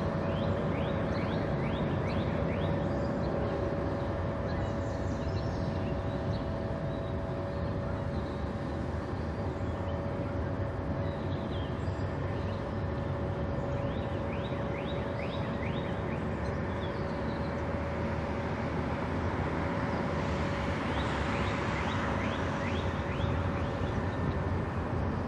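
Steady machinery hum and low rumble with a sustained mid-pitched tone from the passing Great Lakes steam freighter Wilfred Sykes. Short bursts of quick high chirps come through three times.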